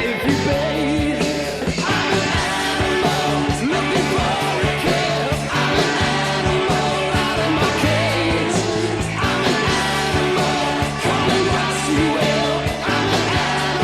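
Rock band recording, a 1984 demo of a hard rock song: distorted electric guitar, bass and drums, with a lead vocal.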